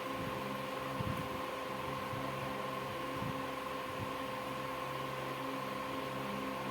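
Steady machine hum with a constant whine and a light click about a second in.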